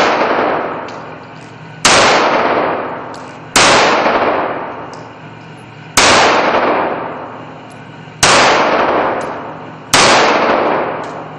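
A 9mm pistol mounted on a POF Eye corner-shot platform fires five single shots about two seconds apart. Each shot rings out in a long echo that dies away, as in an indoor firing range.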